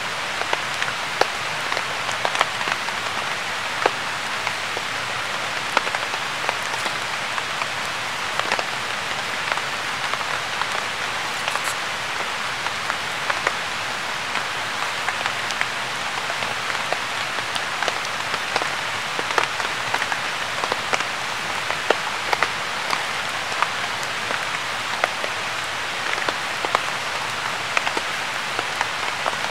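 Steady rain falling in a pine forest, a constant hiss with many scattered sharp drop ticks.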